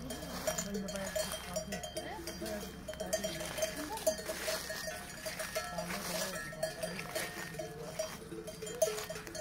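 Bells on grazing cattle clanking irregularly, with short ringing tones that keep recurring.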